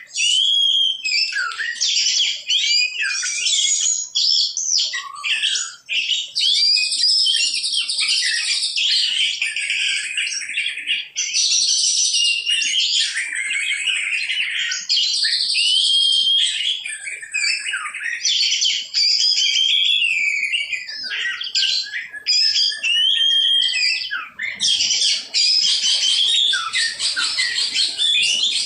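Songbirds chirping and singing without a break, many short whistled calls overlapping one another.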